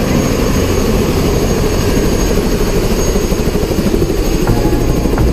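Helicopter running in flight: a loud, steady rotor and engine noise.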